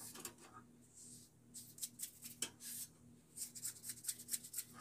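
Faint rubbing and small scratchy clicks as hands handle the bandsaw's removed plastic front cover, the scrapes coming in quick runs, thicker in the second half.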